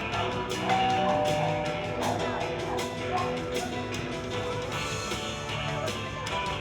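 Upbeat show music with guitar and a steady drum beat.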